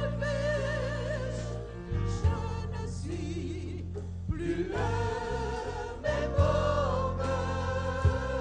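Gospel choir singing with vibrato over a band accompaniment: a steady low bass line and a few sharp beats.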